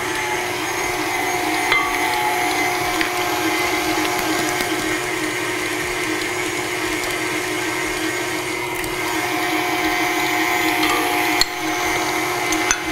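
Electric stand mixer running steadily at one constant pitch, beating butter, cream cheese and sugar into a batter as eggs go in. Two light knocks come through the hum, about two seconds in and near the end.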